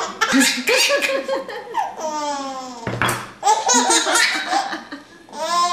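A seven-month-old baby laughing in repeated high-pitched bursts, with one long falling-pitched squeal of laughter about two seconds in.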